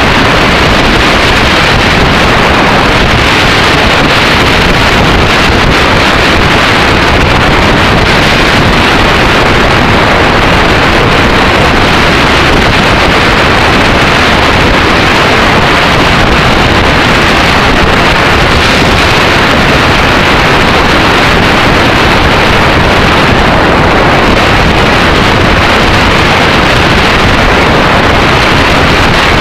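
A Yamaha XT600E motorcycle cruising at a steady road speed. Loud, constant wind rush on the microphone sits over the drone of its single-cylinder engine and the tyre noise.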